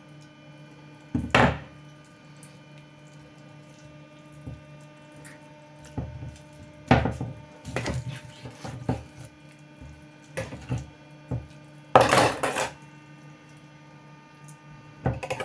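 Knife knocking on a wooden cutting board as raw chicken is cut into pieces: separate, irregular knocks a second or more apart, the loudest and longest about twelve seconds in. A steady low hum runs underneath.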